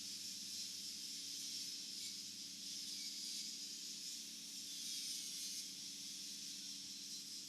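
Stick (SMAW) welding arc on pipe, a steady frying hiss as the electrode burns, with a low hum underneath.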